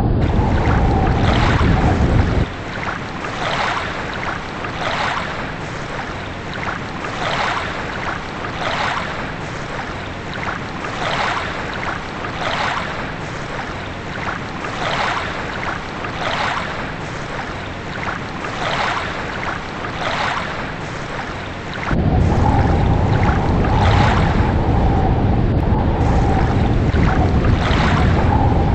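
Water sound: a steady wash with a rhythmic swish about every three-quarters of a second. It gives way at the start, and again from about 22 seconds in, to a louder deep rumble with a steady tone.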